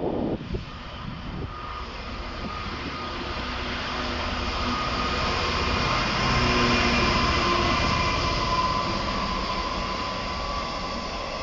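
EWS Class 66 diesel-electric locomotive, with its two-stroke V12 engine, passing through at the head of a container freight train. The sound builds as it approaches and is loudest about six to seven seconds in. It then eases as the container wagons roll by on the rails, with a faint high whine.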